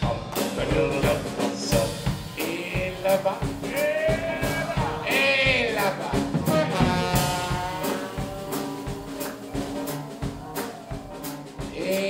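Live New Orleans rhythm-and-blues band music: a drum kit keeps the beat under a man singing drawn-out notes without clear words, with one long held note around the middle.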